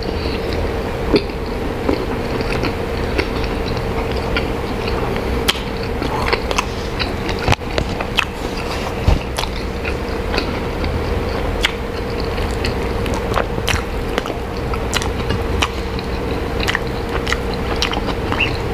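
A person chewing a mouthful of soft-bun chicken burger close to the microphone: frequent small wet mouth clicks and smacks at an irregular pace.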